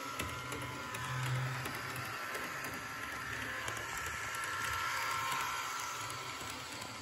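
Bachmann Thoroughbred HO-scale model train running forward on its track: the locomotive's small electric motor whines steadily, with light ticking from the wheels and rail joints. It grows louder about four to five seconds in as the train passes close.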